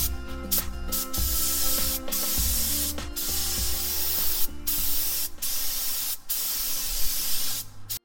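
Compressed-air paint spray gun spraying: a loud, steady hiss that breaks off briefly about every second as the trigger is let go and squeezed again.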